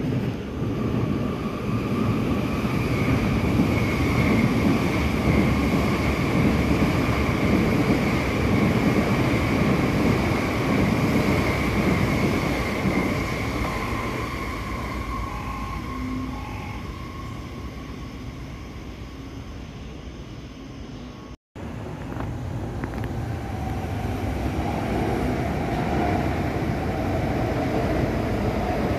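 MTR R-train electric multiple unit passing at high speed: a heavy rumble of wheels on rails with a steady whine over it, which fades away over the following seconds. After a sudden break about two-thirds of the way through, the rumble of a train passing builds again, with a whine that rises slightly.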